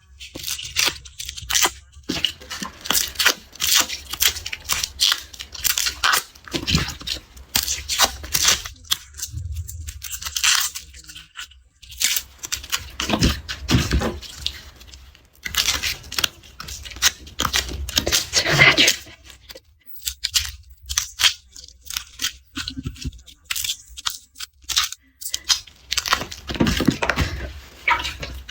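Papery garlic skins crackling and tearing as cloves are peeled close to the microphone: a dense run of crisp crackles with two short pauses.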